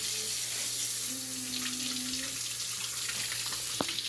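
Kitchen faucet running steadily, its stream splashing over a cucumber being rubbed clean in the sink. There is one sharp click near the end.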